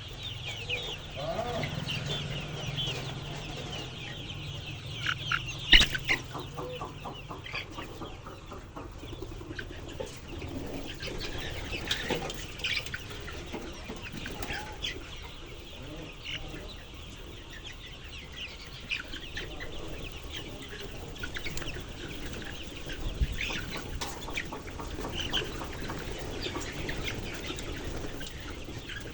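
A flock of chickens clucking and calling, with many short high calls throughout. One sharp knock stands out about six seconds in.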